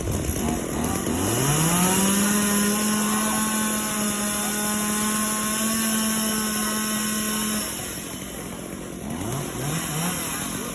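Chainsaw engine revved up to full throttle about a second in and held there steadily for some six seconds, then let back down to idle. Near the end come three short throttle blips.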